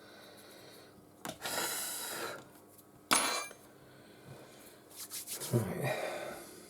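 Close handling noises at a phone-repair bench: a stretch of rubbing or scraping, a sharp click about three seconds in, then more rubbing and rustling near the end.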